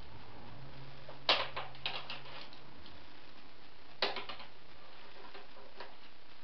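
Willow rods clicking and creaking against each other as a long rod is woven around the crossed rods of a round basket base. The loudest cluster of sharp clicks comes about a second in, another about four seconds in, over a faint steady low hum.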